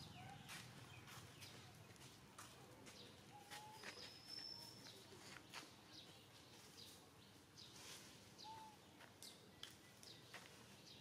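Faint outdoor natural ambience: scattered soft clicks and a few short chirps, with one thin high whistle held for about a second about four seconds in.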